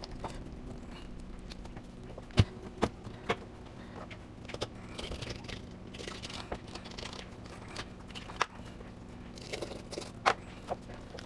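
Small bluegill fish being cleaned by hand: brief scraping and crackling with scattered sharp clicks and knocks, the loudest about two and a half seconds in and again near the end, over a steady low hum.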